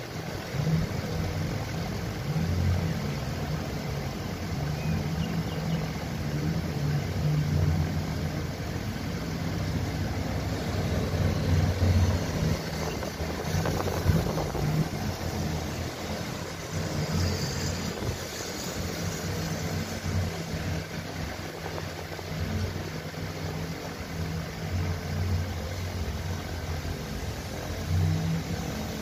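Nissan Serena C27 engine idling, heard up close at the belt-driven alternator and pulleys: a steady low hum that swells and dips unevenly.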